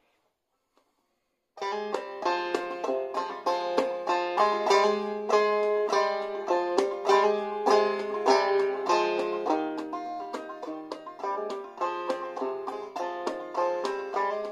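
Five-string banjo played clawhammer style, a run of plucked melody notes over a repeated low drone note. It starts about a second and a half in, after near silence.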